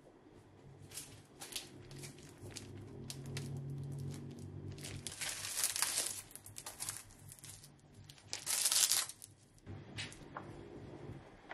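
Plastic packaging of frozen paratha flatbread crinkling as it is handled, in scattered crackles with two louder rustling bursts about halfway and about three quarters of the way through.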